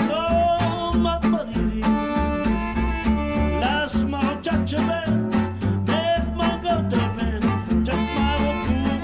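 Gypsy jazz (manouche) string band playing acoustically. Acoustic guitars strum a steady chugging rhythm over upright double bass notes, while a violin plays the melody with sliding notes.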